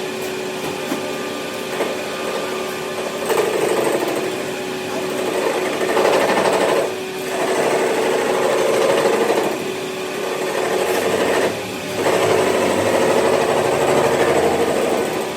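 A workshop machine running with a steady motor hum. From about three seconds in it works in louder stretches, with brief letups near the middle.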